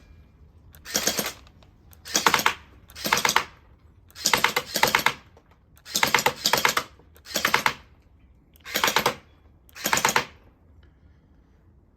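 Sentinel turret gel blaster firing in short full-auto bursts, each a quick string of rapid clicking shots. There are about eight bursts roughly a second apart, and they stop near the end.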